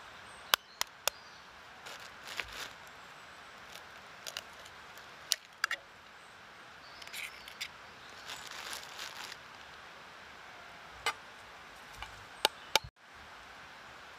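Dry sticks snapping and cracking in sharp single cracks, about nine times, with short spells of rustling branches and leaves between them.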